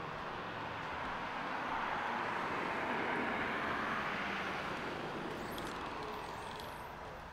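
Road traffic noise: a car passing on the street, swelling and then fading away. A few faint clicks come near the end.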